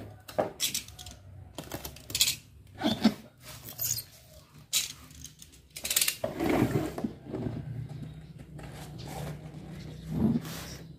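Packing tape pulled off the roll in several short bursts and pressed onto a plastic crate, with rustles and knocks of handling, over a faint low hum.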